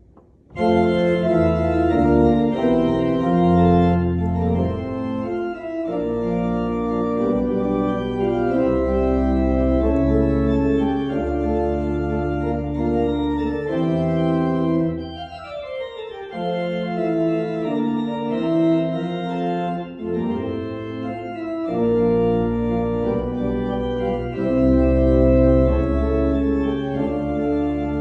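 Grooms and Payne pipe organ playing full sustained chords over a deep pedal bass, starting abruptly about half a second in. About halfway through the sound briefly thins as a line runs downward, then the full chords return.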